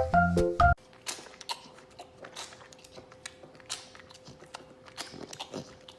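Bouncy children's music stops abruptly under a second in. Then a pet chews and crunches: an irregular run of small crisp clicks and crunches, over a faint steady hum.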